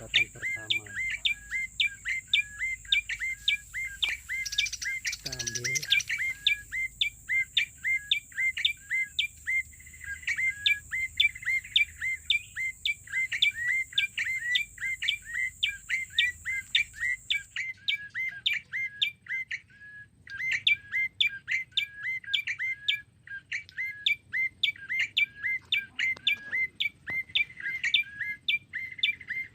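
A small bird chirping over and over, a short sharp call about twice a second, kept up without a break.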